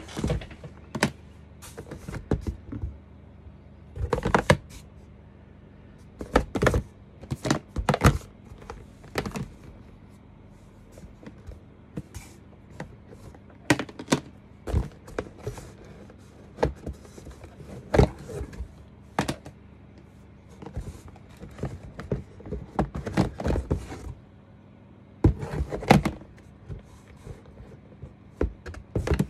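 Clear plastic adapter cases clacking and knocking against each other and the cardboard box as a hand shifts and pulls them out. The knocks come in irregular clusters with short pauses between.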